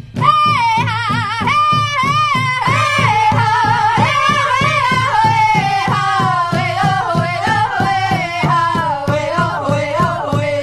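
Music: a high solo voice sings a wavering melody that slowly falls in pitch, over a steady drumbeat.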